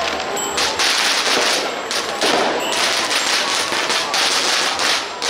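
A string of firecrackers going off in dense crackling runs, with a few short breaks.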